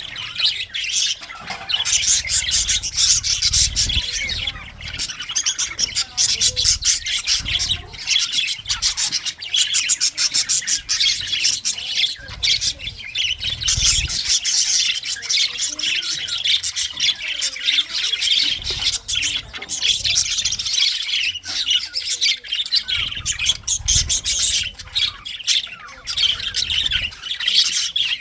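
A group of English budgerigars chattering, with rapid overlapping chirps, squawks and warbles that go on without a break.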